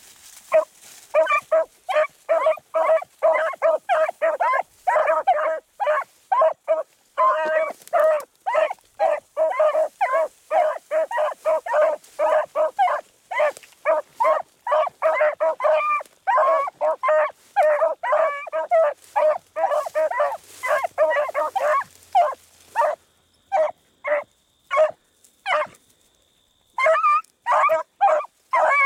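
Beagles baying in quick, repeated barks, about two to three a second, as they run a rabbit's scent trail. The baying breaks off for a few seconds near the end, then picks up again.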